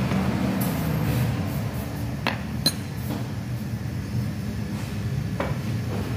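A few sharp metallic clicks as a worn Toyota Avanza inner tie rod (rack end) is worked by hand, its ball joint loose. The two sharpest clicks come close together in the middle, over a steady low hum.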